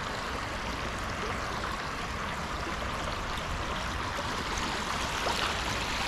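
Steady rush of shallow creek water flowing over a rocky riffle.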